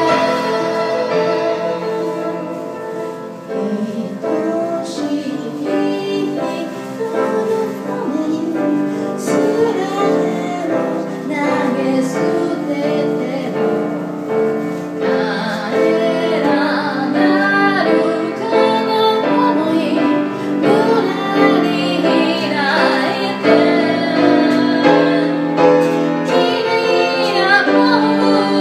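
A woman singing a slow song while accompanying herself on a grand piano, her voice standing out more strongly from about ten seconds in.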